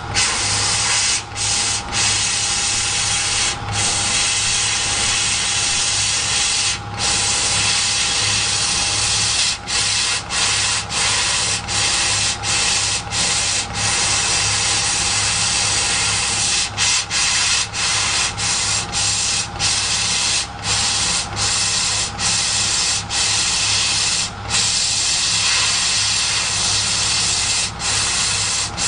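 CO2 laser cutting machine cutting 4 mm wood: a steady hiss over a low hum. The hiss drops out for a split second many times, at irregular intervals.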